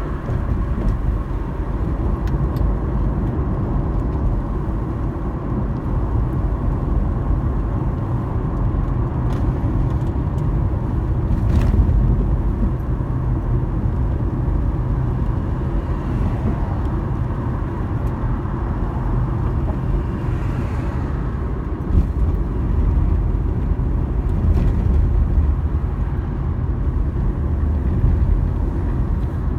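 A car driving: steady low rumble of road and engine noise, with a few brief knocks, the loudest about twelve seconds in.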